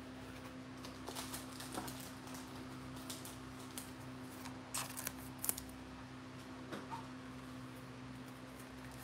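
Quiet room with a low steady electrical hum and a few faint soft clicks and rustles, a cluster about a second in and another near the middle.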